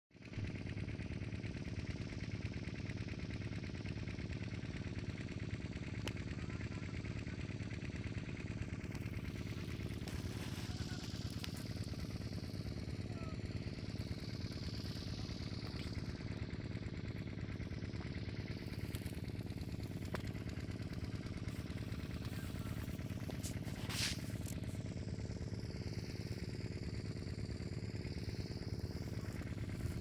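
A steady engine hum that runs on without change, with a brief high-pitched sound about 24 seconds in.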